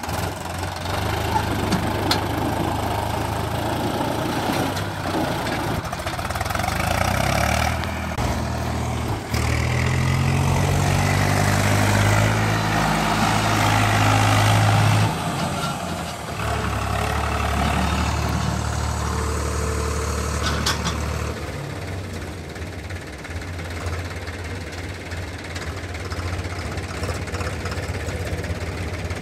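Diesel tractor engine running. Its revs rise from about nine seconds in, hold high until about fifteen seconds, then fall back to a steady, lower running speed.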